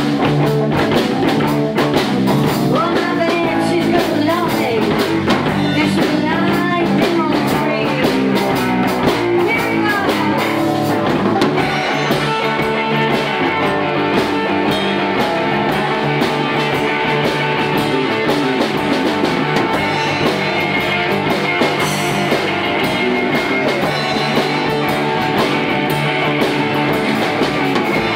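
A blues band playing live: slide guitar over electric guitar, bass and drums. Gliding slide notes through roughly the first half, then steadier held notes.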